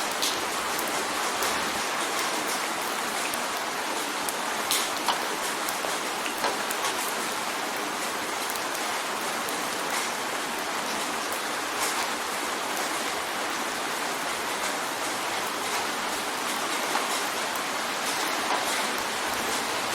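Steady rain drumming on a window pane, an even hiss of rainfall with scattered sharper individual drop hits.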